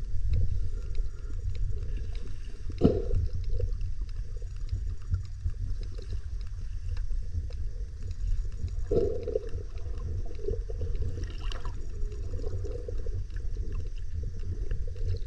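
Underwater sound picked up by a camera: a steady low rumble of moving water with gurgling, broken by a few short, louder bursts about three seconds and nine seconds in.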